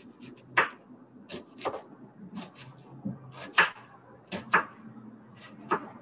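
Chef's knife slicing through a halved onion on a wooden cutting board, each cut ending in a sharp knock of the blade on the board. The knocks come about once a second, often two in quick succession.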